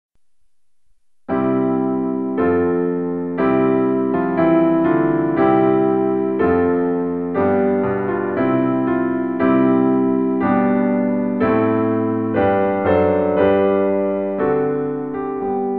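Background electric piano music: chords struck about once a second, each fading before the next, starting just over a second in.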